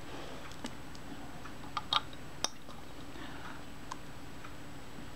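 A handful of small, sharp metallic clicks, spaced irregularly, as a small screwdriver tip works at a tiny screw in a Kodak Retina I camera's top plate. The screw is glued in and won't come loose.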